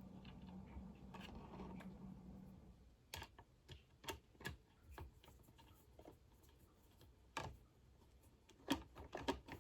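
Faint, irregular small clicks and taps of a screw being driven in by hand with a screwdriver while fitting the shroud of an Edan Mini siren.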